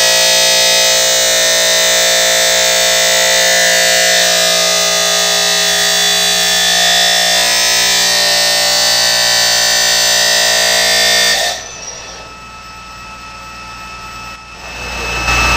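Abrasive cut-off disc cutting through the gates of metal femoral castings, a loud steady high screeching whine. About eleven and a half seconds in it drops off sharply to a much quieter hiss. Just before the end a low rumble comes in.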